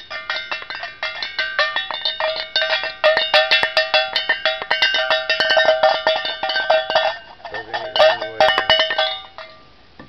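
A metal object being banged rapidly and continuously, a dense clatter of strikes with a bright metallic ringing. It slackens briefly a little past the middle and then stops shortly before the end.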